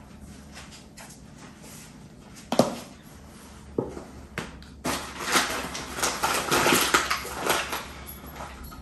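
Kitchen utensils and bowls being handled while baking: a few sharp knocks, then about three seconds of busy clatter and scraping.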